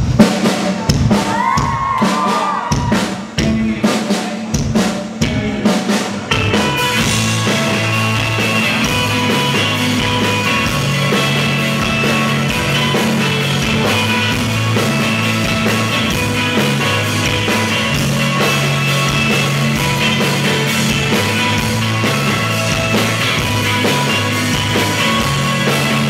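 Live indie rock band: for about the first six seconds the drum kit is heard mostly on its own with separate hits, then the full band comes in with electric guitar and bass and plays on steadily.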